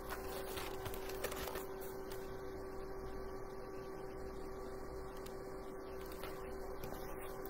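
Steady electrical hum: one constant mid-pitched tone with fainter overtones over a low hum, with a couple of faint clicks in the first two seconds.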